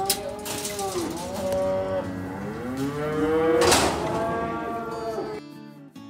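Livestock calling in the auction pens: several long, overlapping calls that rise and fall in pitch, the loudest about two-thirds of the way through. Acoustic guitar music cuts in just before the end.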